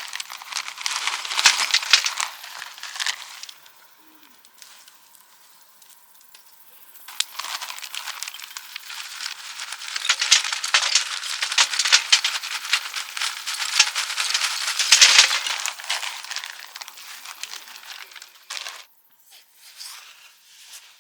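Dense crinkling and rattling handling noise in two stretches, with a quieter pause of a few seconds between them and a few short bits near the end.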